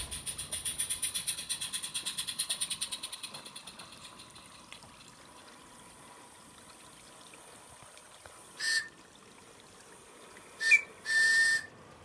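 A garden-railway train passing close by with a rapid rhythmic beat, about six a second, that fades away over the first four seconds. The model locomotive's whistle then sounds three times: one short toot about three-quarters of the way through, and two more near the end, the last the longest.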